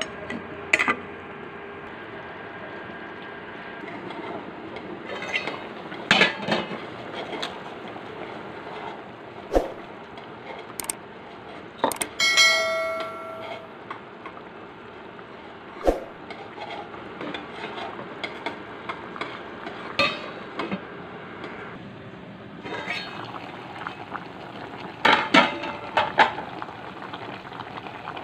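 Metal ladle and steel bowls clinking and knocking against a steel cooking pot, in scattered clusters with a cluster near the end, over a steady hiss. A short ringing tone sounds about halfway through.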